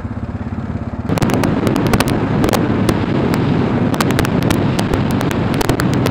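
Motorcycle riding on a loose gravel road. The engine runs steadily at first, then about a second in it gets louder as the bike picks up speed, and wind noise and many sharp clicks of gravel crunching under the tyres and pinging off the bike fill the rest.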